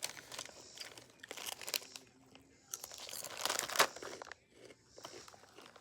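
Irregular crinkling and rustling handling noise in two stretches, one at the start and one about three seconds in, with a quieter gap between.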